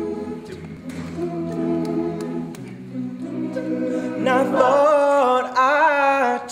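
A cappella vocal group singing the introduction in held chords over a low bass line. About four seconds in, a higher voice with vibrato rises above the chord and becomes the loudest part.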